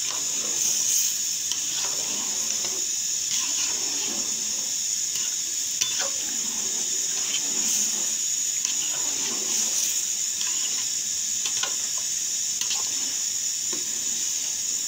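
A ladle stirs soaked rice into boiling chicken stock in a large metal pot. The liquid sloshes and bubbles over a steady hiss, and the ladle now and then scrapes or clicks against the pot.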